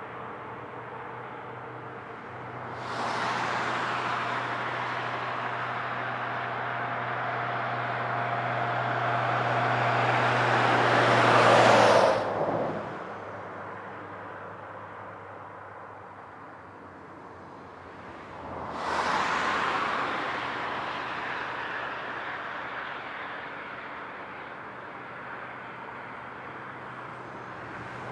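Street traffic sound: a low engine hum under road noise that swells about three seconds in and builds to a loud peak, then cuts off abruptly near the middle. After a quieter stretch, traffic noise swells again about two-thirds of the way through.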